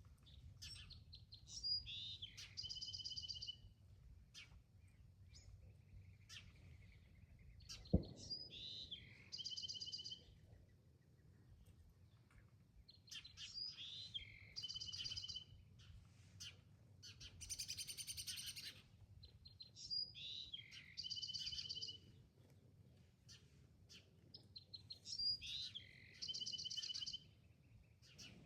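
A songbird repeats the same short song five times, about every six seconds: a few quick notes and then a ringing trill. A harsher buzzy call comes about halfway through, and a single sharp knock sounds about eight seconds in.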